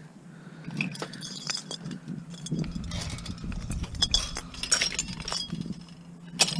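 Scrap metal clinking and rattling as it is picked through and handled by hand, a string of small clatters with a sharp click near the end. A steady low hum runs underneath.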